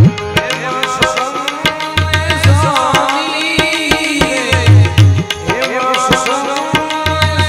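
Live Gujarati devotional bhajan music: a harmonium melody over tabla, with deep bass drum strokes every couple of seconds and small hand cymbals (manjira) clicking steadily.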